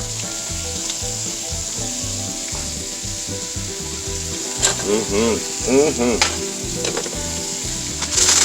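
Food sizzling in a hot pan while being stirred with a utensil, with a few knocks against the pan. A brief wavering pitched squeak comes about midway.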